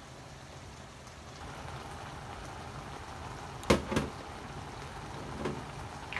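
Stew of crab, ground pork and bottle gourd simmering in a wok: a steady bubbling hiss that grows a little about a second and a half in. Two sharp clicks come a little past the middle.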